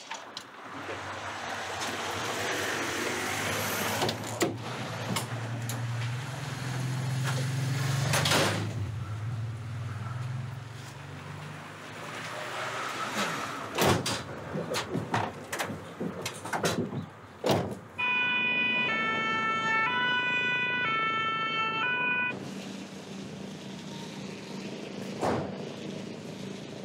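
A low engine rumble builds for the first eight seconds or so, then sharp knocks of doors and the stretcher as it is loaded into a fire brigade rescue van. About two-thirds of the way through, a two-tone siren alternates between its two notes for about four seconds, starting and stopping abruptly, followed by a steady low hum.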